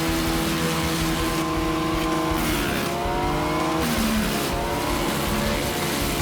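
Large wood chipper's engine running steadily under working load, its pitch dipping and climbing back twice in the second half.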